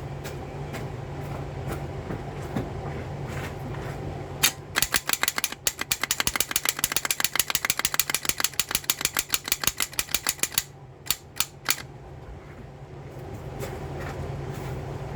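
Toyota Solara starter solenoid chattering: a fast, even run of clicks, about six or seven a second, for several seconds, then a few single clicks. This is the starter failing to engage, which the owner puts down to it hitting a dead spot. A steady low hum underlies it.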